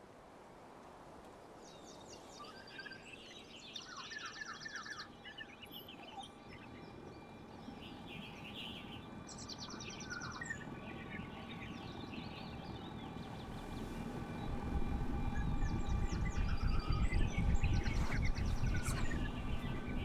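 Several small birds singing, with repeated chirps and rapid trills, over a few steady held tones. The sound fades in, and a low rumble grows louder through the second half.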